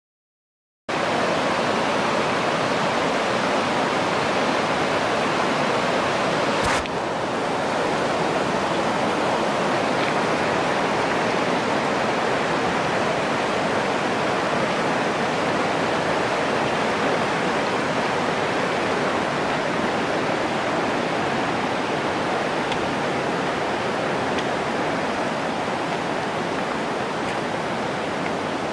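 Mountain river rushing over boulders and shallow rapids, a steady, dense roar of water starting about a second in. A single sharp click about seven seconds in, after which the rush is slightly quieter.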